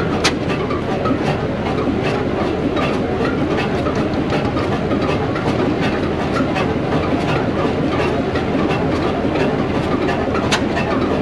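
Large upright stationary engine with a big flywheel running steadily: a loud, continuous mechanical clatter with regular ticks.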